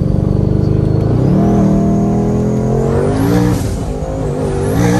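Twin-turbo Ford Shelby GT500's 5.2-litre V8 accelerating hard, its note climbing in pitch, dropping sharply at a gear change about three and a half seconds in, then climbing again. A rushing hiss comes around the shift and again near the end.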